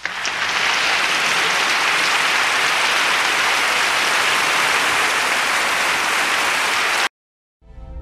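Crowd applauding in a steady, dense wash of clapping that cuts off abruptly about seven seconds in. Music begins just before the end.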